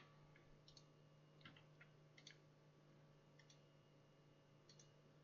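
Near silence with faint, scattered clicks of a computer mouse, about six over a few seconds, over a low steady hum.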